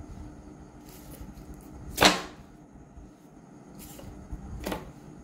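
Knocks as fried rolls are set down on a ceramic plate: a sharp knock about two seconds in, and a softer one near the end.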